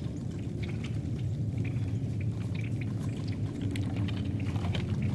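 White-tailed deer walking through dry leaves and brush: scattered light rustles and crackles over a steady low rumble.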